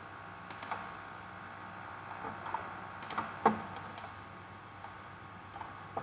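Clicks from a computer mouse and keyboard: two quick clicks about half a second in, then a cluster of about five between three and four seconds, over faint steady background noise.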